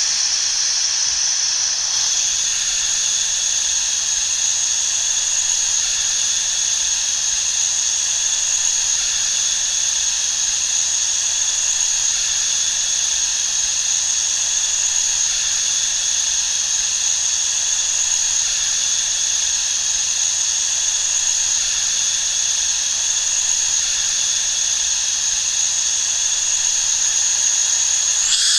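Air escaping from a punctured tyre: a steady, high-pitched hiss that holds unchanged throughout.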